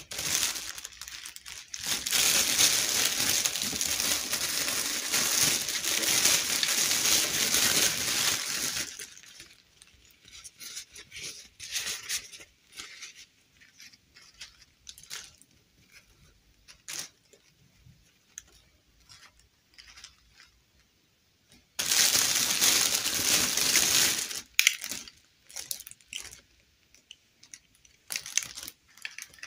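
Clear plastic bag crinkling and rustling as hands rummage in it, in two long spells: one from about two seconds in lasting some seven seconds, and a shorter one past the twenty-second mark. Between them come small clicks and soft rustles of doll clothes and a plastic doll being handled.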